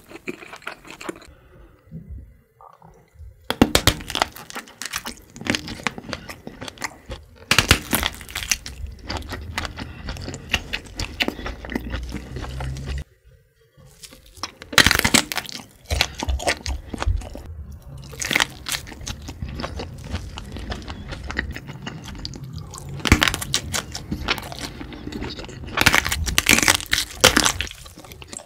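Close-miked eating of smoked kielbasa sausage: a bite into the casing with a sharp crunch every few seconds, with wet chewing in between.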